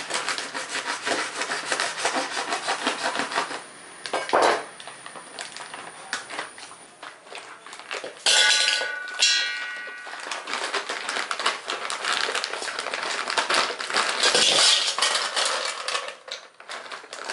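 A plastic bag of ice cubes is cut open with a knife, crinkling, and then, about eight seconds in, the ice cubes pour clattering into a stainless steel tin. The tin rings briefly at the first loud rush of ice.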